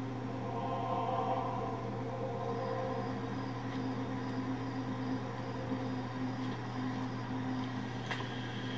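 Suspense music from a TV drama's soundtrack: low, sustained droning tones with no beat.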